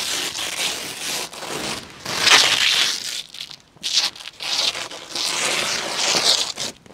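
A large clear plastic sheet crinkling and rustling loudly as it is spread out and handled, in several surges of a second or so each.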